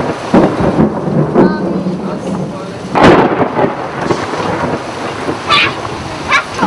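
Heavy rain pouring down steadily, with a sharp, loud crack of thunder about three seconds in.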